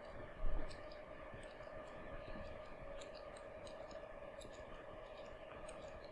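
Quiet room tone: a steady hum with faint scattered clicks, and a low thump about half a second in.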